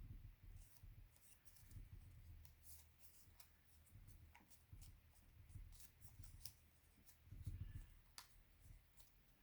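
Faint rustling and crinkling of a sheet of paper as it is folded and tucked by hand, with soft low bumps from handling.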